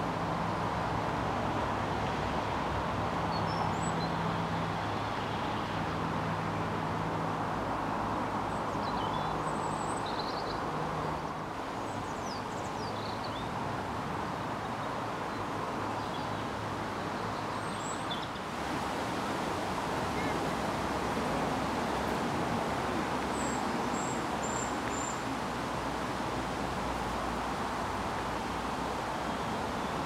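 Woodland ambience: a steady rushing noise, with faint, short high bird chirps now and then. Near the end there is a run of four quick notes.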